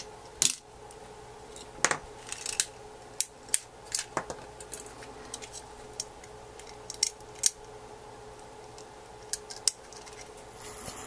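Irregular small clicks and taps from hands handling an opened iPhone 3GS during disassembly: fingers and tools against its metal frame, board shields and small parts. A short scrape comes near the end.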